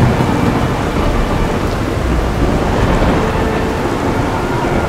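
Thunderstorm sound effect: heavy rain with thunder, a dense steady wash of noise.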